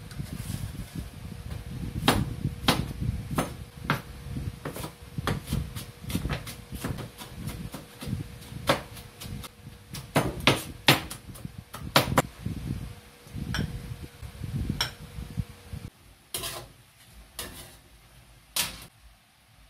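A cleaver chopping tomatoes on a wooden cutting board: a long run of irregular knocks of the blade on the board, several a second. Near the end they give way to a few sharper clinks of a metal ladle against an aluminium cooking pan.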